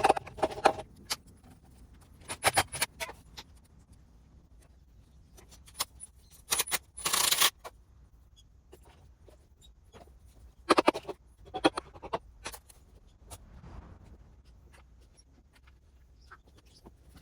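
Metal hand tools and engine parts clinking and knocking, in scattered short clinks with a longer scraping rasp about seven seconds in.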